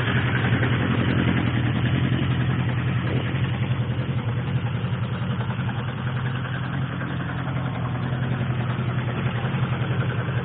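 1987 Suzuki GSX-R1100's oil-cooled inline-four engine idling steadily with a fast, even pulse.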